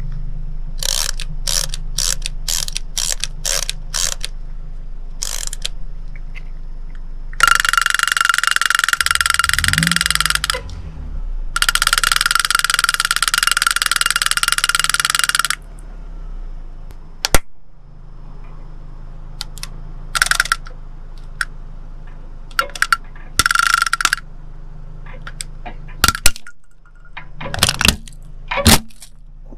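Clockwork toy bear drummer: first a run of sharp clicks, then the wound-up toy rattling on its little drum in two long stretches, with a car engine idling underneath. Near the end, several sharp cracks of hard plastic breaking as the car tyre rolls over and crushes the toy.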